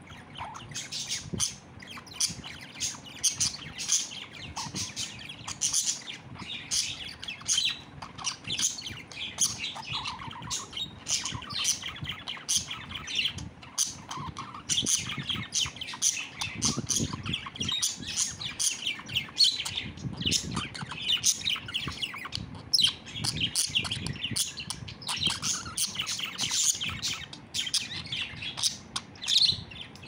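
Budgerigar chattering in a fast, continuous stream of high chirps and squawks, with occasional sharp clicks.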